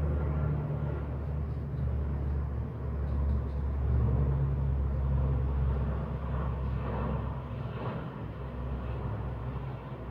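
Steady low rumble, like an engine or machine running in the background, with a faint hiss above it.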